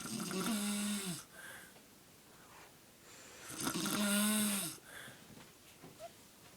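A person snoring: two long snores about three and a half seconds apart, each a noisy hiss with a steady humming tone running through it.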